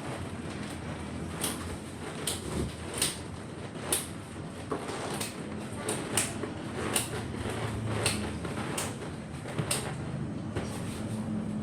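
Handling noise: irregular sharp clicks and knocks, roughly one a second, with light scraping, as equipment and its packaging are handled.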